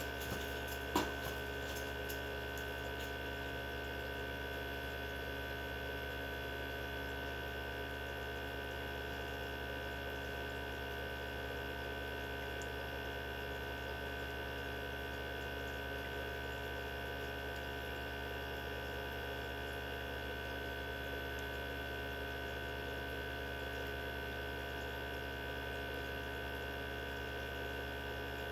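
Mini benchtop centrifuge running at speed: a steady motor hum with a constant high whine, and a single click about a second in.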